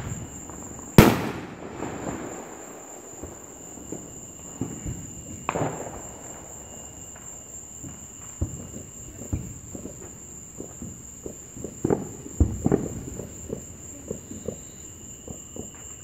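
Backyard fireworks going off around the neighbourhood: one loud bang about a second in, then scattered pops and reports of varying loudness, with several sharper ones later on. A steady high insect trill runs underneath.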